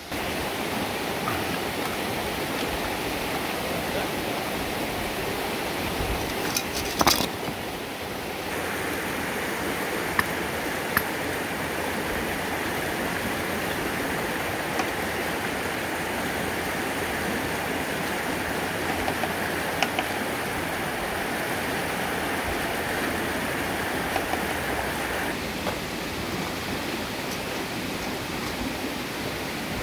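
A stream running steadily, with a few sharp clicks and a louder knock about seven seconds in.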